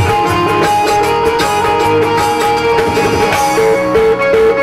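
Instrumental interlude of a live Bhojpuri song: electronic keyboards playing a melody over a steady drum beat.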